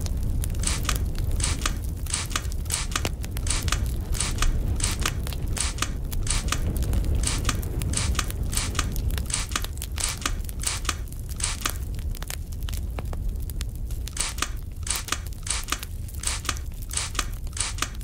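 Pump spray bottle spritzing over and over, a short hiss two to three times a second with a brief pause about two-thirds through, over a steady low rumble.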